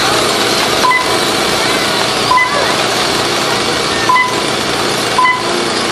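Traxxas Slash short-course RC trucks running on a dirt track, a steady mass of motor and tyre noise. Four short high electronic beeps come at uneven intervals, typical of a lap-timing system beeping as a truck crosses the timing loop.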